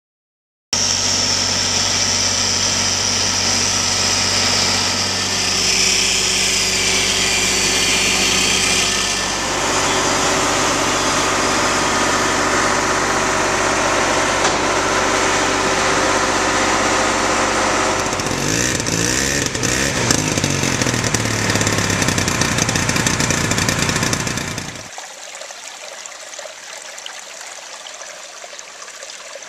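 An engine running steadily with a pitched drone, its pitch wavering briefly about 19 to 21 seconds in. It cuts off suddenly about 25 seconds in, giving way to the softer sound of water trickling over small stone weirs in a stream.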